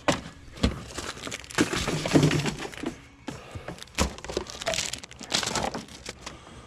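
Junk being rummaged through and handled: an irregular string of clacks and knocks of hard objects against each other, with crinkling and rustling in between.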